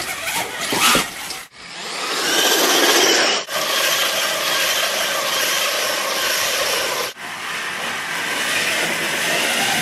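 RC monster-truck robot platform driving: motor and drivetrain whirring along with tyre and terrain noise. It comes as several short clips that cut off abruptly about a second and a half, three and a half, and seven seconds in.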